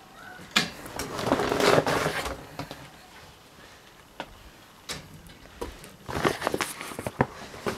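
Books being handled: rustling and a few light knocks as they are picked up and moved about.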